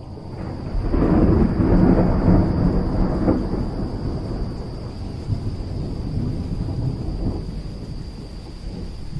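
A long roll of thunder that swells about a second in and rumbles away slowly over the following seconds, over a steady hiss of rain.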